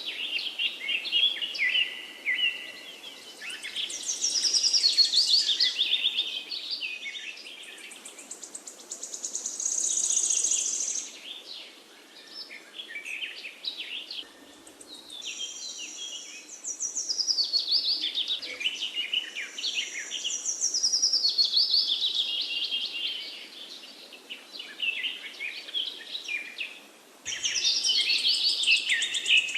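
Several forest birds singing at once, overlapping chirps and trills in phrases of a few seconds with short lulls between them.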